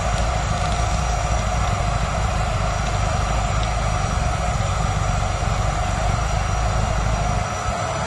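Miele canister vacuum cleaner running steadily, drawing air through its open hose end with no attachment fitted.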